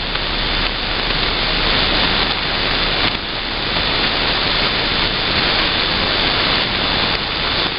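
Shortwave receiver hiss: band static heard in upper sideband on 5877 kHz once the numbers station's transmission has gone off the air. It swells a little over the first second, then runs on steady with a faint high whistle.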